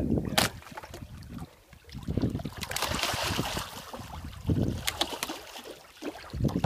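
Wind buffeting the microphone on a boat at sea, with water washing against the hull and a few sharp knocks.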